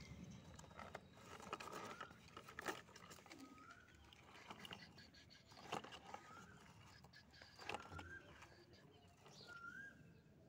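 Faint crunching and scraping of loose sand under plastic toy truck wheels, in irregular small clicks. Short chirps repeat every couple of seconds.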